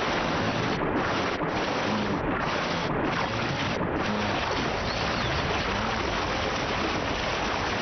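A herd of wildebeest and zebras plunging and splashing through a river: a dense, steady wash of churning water.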